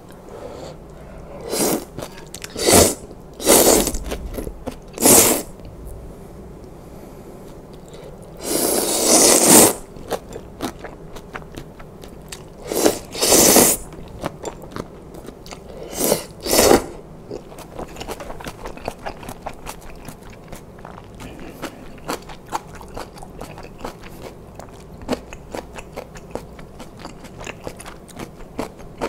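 Close-miked slurping of spicy knife-cut noodle soup: a string of loud, short slurps, with one longer slurp about nine seconds in and more around thirteen and sixteen seconds. Wet chewing fills the rest.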